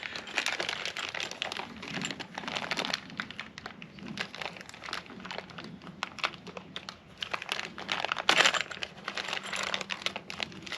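Mounting bolts and their packaging being handled: crinkling mixed with many irregular small clicks of metal hardware, with a louder rustle near the end.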